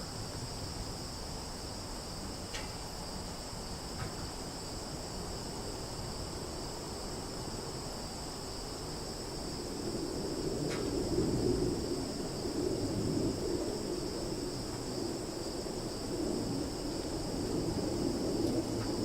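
Summer forest ambience: a steady, high-pitched insect chorus with a few brief faint chirps. About halfway through, a low rumble rises under it.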